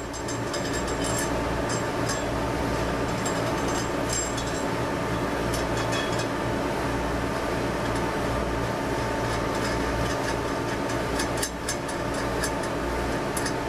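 Light metallic clinks of steel washers and nuts being handled and started onto threaded all-thread rods, coming in scattered bunches. Underneath runs a steady mechanical hum with a held tone.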